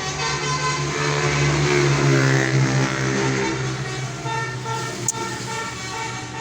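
Tour bus's multi-tone "telolet" horn sounding in held tones that change pitch in steps, over the bus's engine running. A single sharp click about five seconds in.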